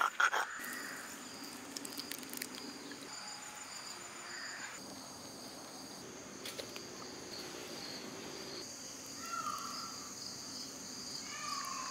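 Steady high-pitched chirring of insects such as crickets, with a few faint clicks and two short faint calls near the end.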